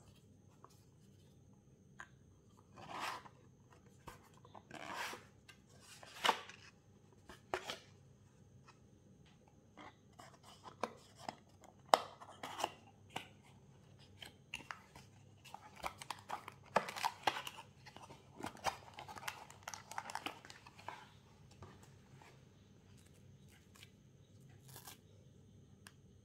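Unboxing handling sounds of a smartwatch and its packaging: several swishing rustles early on, then many irregular sharp clicks and taps with scraping between them, the loudest click about halfway through.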